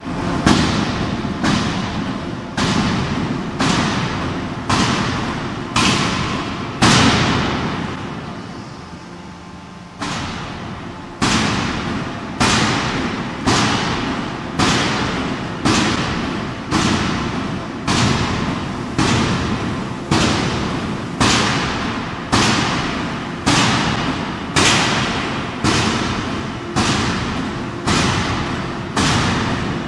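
15-ton bridge-type free forging hammer striking a red-hot forging: heavy blows about once a second, each ringing and fading before the next. The blows stop for about three seconds partway through, then carry on at the same steady pace.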